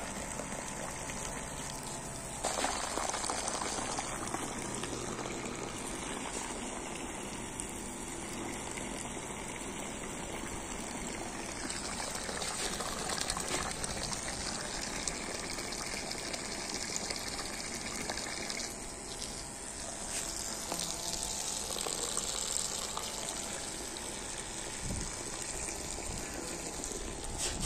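A pressurized jet of anti-termite chemical solution from a hose sprayer gushing steadily into holes in the soil.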